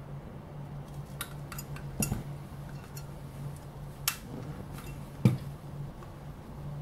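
A plastic EasiCap bottle security tag is slid over a glass bottle's neck and twisted to lock. It makes a string of sharp clicks and clinks against the glass, the loudest a knock about five seconds in. A steady low hum runs underneath.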